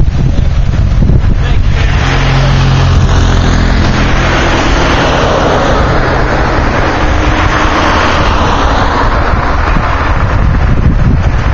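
A motor vehicle passing along the road, its engine and tyre noise swelling about two seconds in and fading away near the end. Wind buffets the microphone throughout.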